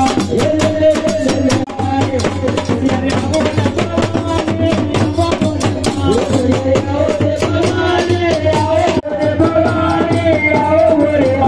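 Live Gujarati folk akhyan music: a man singing into a microphone over a fast, steady beat of dhol drum and rattling hand percussion.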